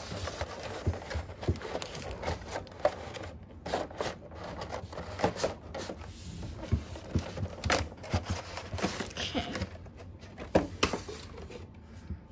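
Clear plastic clamshell tray and cardboard box being handled and fitted together: irregular plastic clicks, taps and crinkles, with one louder knock near the end.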